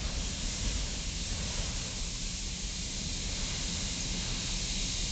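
Freight train of autorack cars rolling past at close range: a steady rumble and hiss of wheels on the rails.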